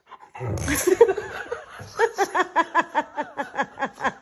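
A short loud burst of noise about half a second in, then a person laughing in a rapid run of short, even "ha" pulses, about five a second.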